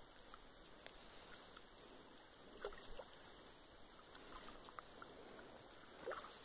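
Faint sloshing and dripping of river water as a wet cast net is gathered up by someone wading in the river, with a few soft splashes near the middle and again near the end.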